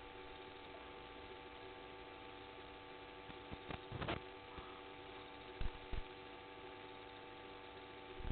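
Steady electrical hum with several fixed tones over a faint hiss. Around the middle it is broken by a short cluster of soft knocks, then two more knocks a moment later.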